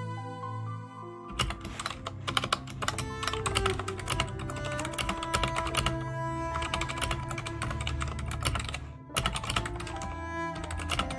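Rapid typing on a computer keyboard, starting about a second in, with a short pause near the end, over background cello music.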